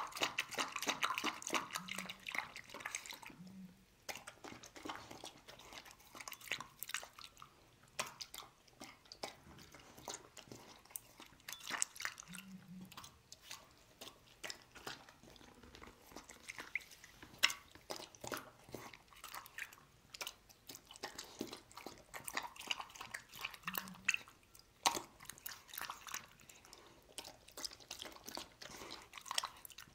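Dog eating chicken soup: wet chewing, lapping and smacking clicks. They are densest in the first few seconds, then come in irregular spurts with short pauses.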